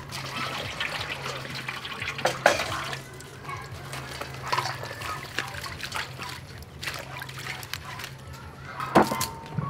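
Water poured from a metal pot into a stainless steel bowl for the first few seconds, then splashing and sloshing as leaves are washed by hand in the water-filled bowl, with a few short knocks.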